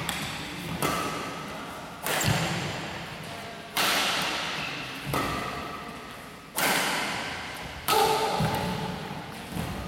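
Badminton racquets striking a shuttlecock during a doubles rally, seven sharp cracks about every second and a half. Each hit rings on in a long echo through the large hall.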